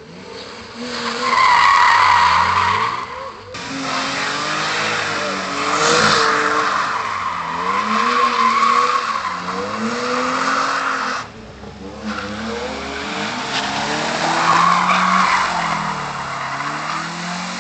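BMW E36 3 Series doing donuts: the engine revs up and down while the spinning rear tyres squeal and scrub on the asphalt. The sound breaks off abruptly twice and picks up again.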